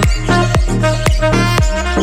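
Background electronic dance music with a steady kick drum beating about twice a second under sustained synth notes.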